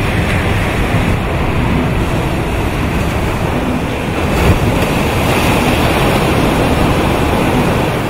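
Sea surf breaking and washing up a sandy beach: a loud, steady rush of waves, swelling about four and a half seconds in.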